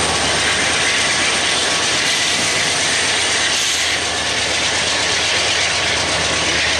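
Loaded freight train's tank cars and covered hoppers rolling past close by: a steady, loud rush and clatter of steel wheels on rail, with the drone of the lead diesel locomotives further off.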